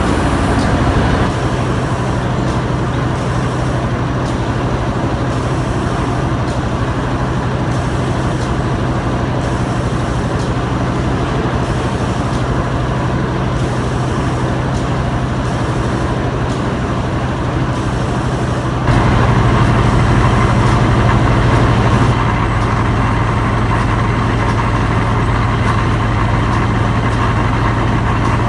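Felt-making machinery, fibre conveyors and carding rollers, running: a loud, steady mechanical din with a constant low hum. It changes suddenly and gets louder about two-thirds of the way through, then drops back a little a few seconds later.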